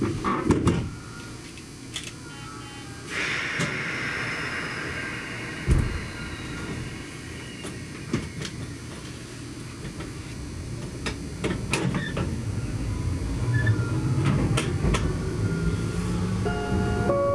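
Electric train starting off: knocks and an air hiss around the doors closing, a thud, then the traction motors' whine rising as it pulls away, with clicks from the track. A chime melody starts near the end.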